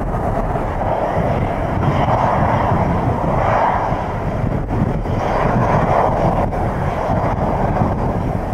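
Boeing 737-300's CFM56 turbofan engines running at taxi power as the jet rolls past, a steady jet rush that swells a little twice. Gusty wind rumbles on the microphone underneath.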